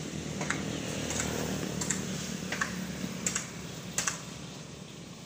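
A series of sharp clicks or taps, about one every 0.7 s, over a steady low rumble.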